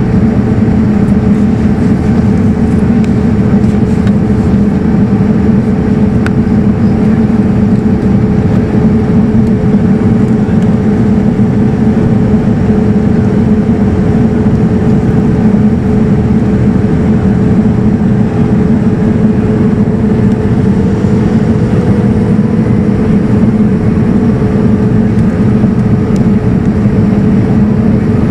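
Steady cabin noise inside a Boeing 787-9 airliner on descent: the even rush of airflow and its Rolls-Royce Trent 1000 engines, with a constant low hum underneath.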